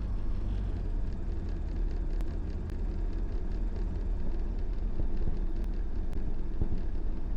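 Steady drone of a Diamond DA20 light aircraft's piston engine and propeller in flight, heard from inside the cockpit, deep and even throughout.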